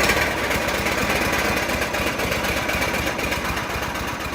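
Large farm-machinery engine running steadily with a fast, even pulse, cutting off abruptly at the very end.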